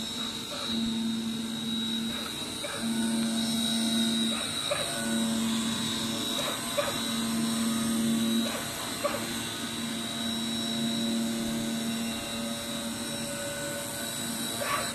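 DCZ70 CNC flatbed digital cutter running as its head cuts a 10 mm asbestos sheet: a steady high whine, with a lower hum that starts and stops every second or two as the head moves, and a few light clicks. The machine stops near the end.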